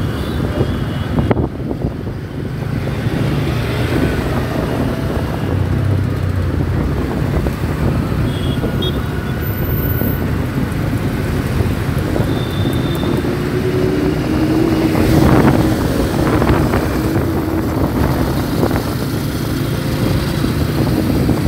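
Motorcycle riding through city traffic, heard from a phone mounted on the rider's helmet: steady engine noise mixed with wind on the microphone and surrounding traffic, swelling briefly about two-thirds of the way through.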